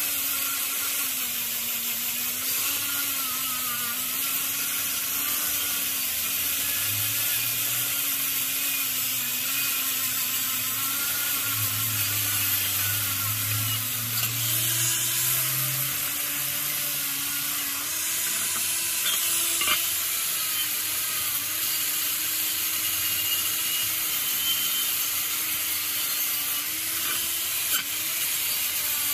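Electric angle grinder with a wire wheel brush running continuously, scrubbing rust and worn paint off the metal base of an old saw. Its motor whine wavers in pitch with the load and steps up about halfway through, over a steady scratchy hiss from the wire bristles on the metal.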